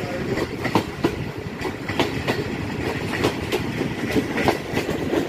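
Passenger train running with a steady rumble, its wheels clicking over rail joints in an uneven clickety-clack, a few clicks a second.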